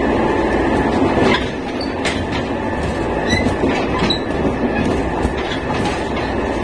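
Nankai 7100-series electric train running at high speed, around 110 km/h: a steady whine from the traction motors and gearing over loud rolling noise. Sharp clacks from the wheels over rail joints come a few times.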